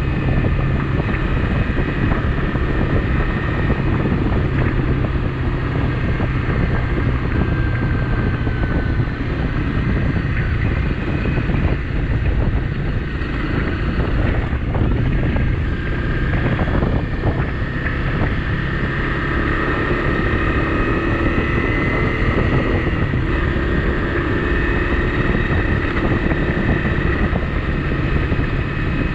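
Honda CRF250 Rally's single-cylinder engine running steadily while the motorcycle rides along a dirt road, with wind buffeting the microphone.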